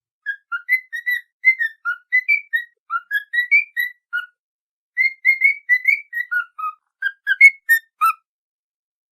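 A whistled tune: a quick run of short, clear notes hopping up and down in pitch, with a brief break partway through. It is a training whistle of the kind played for a cockatiel to learn and copy.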